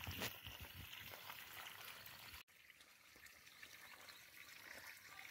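Near silence with a faint trickle of water running along a muddy dug channel.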